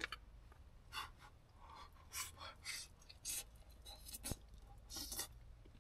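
Chopsticks scraping and tapping in a metal pressure-cooker pot and a bowl while a person picks out and eats stew: a series of short, faint scrapes, with one sharp click about four seconds in.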